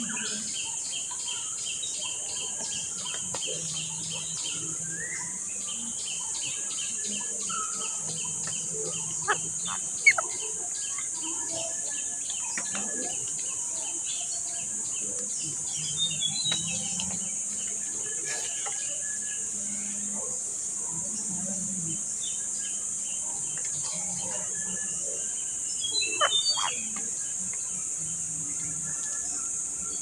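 Steady high buzzing of insects with a fast pulsing trill over it. A few sharp clicks come about ten seconds in, and brief bird chirps come around the middle and again near the end.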